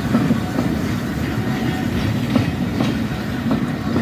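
Railway passenger coaches rolling past at a platform behind a steam locomotive: a steady low rumble of wheels on rail, broken by irregular sharp clicks as the wheels cross the rail joints.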